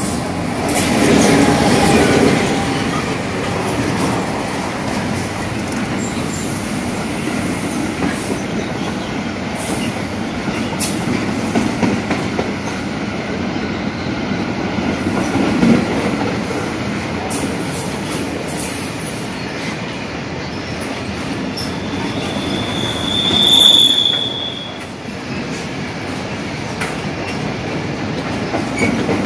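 GM/EMD G26CW-2 diesel-electric locomotive passing close by, loudest in the first few seconds, followed by a long string of container flat wagons running steadily past on the rails. About 23 seconds in, a short high wheel squeal rises and fades.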